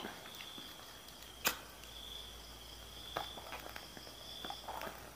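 Crickets trilling steadily in the background, with one sharp click about a second and a half in and a few softer clicks later as a cigarette lighter is worked to light a cigarette.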